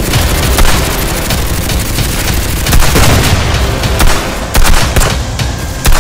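Gunfire sound effects: rifle shots and sharp impacts in irregular volleys over a heavy low rumble.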